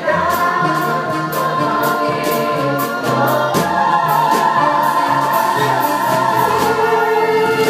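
Show choir singing a Broadway show tune in unison with a live pit band, over a steady drum beat, ending on a long held note near the end.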